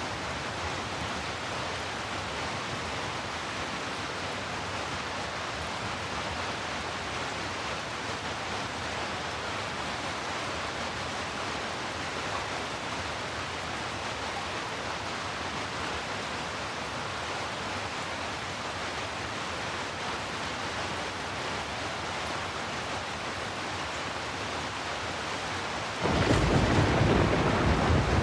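Steady heavy rain, an even hiss of rainfall. Near the end it suddenly turns louder and deeper, a low rumble swelling in under the rain.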